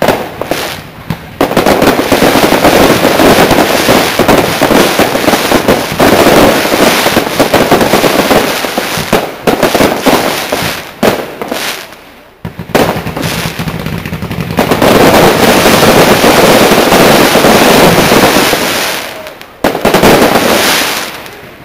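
Fireworks display: a few separate bangs at first, then a dense barrage of shell bursts and crackle. It breaks off briefly about twelve seconds in and eases off near the end.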